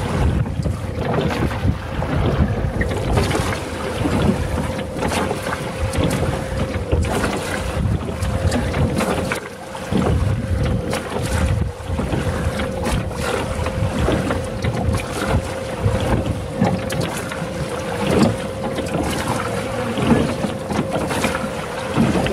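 Wind buffeting the microphone over water noise from a rowing boat on the river, with a steady hum underneath.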